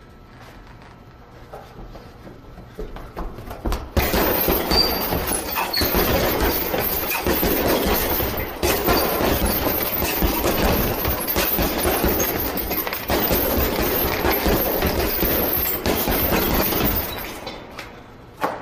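Gloved punches pounding a hanging TKO heavy bag in a rapid, continuous full-intensity flurry, starting abruptly about four seconds in and dropping off about thirteen seconds later.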